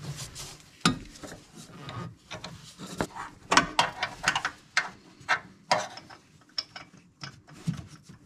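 Socket ratchet wrench being worked in an engine bay: an irregular run of sharp metallic clicks and knocks.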